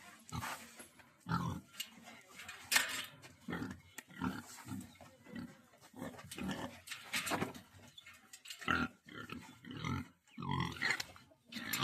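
A pig grunting over and over, in short, irregular grunts.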